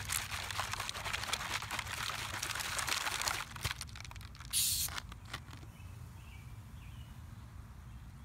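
A plastic cola bottle holding Skittles is shaken, giving rattling, sloshing and crinkling of the candy wrapper on its neck for about three and a half seconds. A short hiss comes about four and a half seconds in as the bottle stands and its foam rises, then only a faint fizz and background remain.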